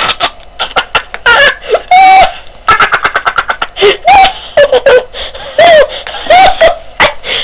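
A boy laughing wildly in a deliberately hyena-like way: high-pitched shrieks that slide up and down, broken by fast, choppy cackles. It is loud enough to overload the microphone again and again.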